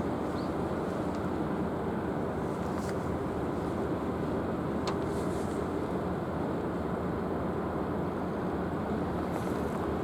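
Steady low rumble of the helicopter destroyer JS Izumo's engines and exhaust, an even noise that does not change in pitch or level.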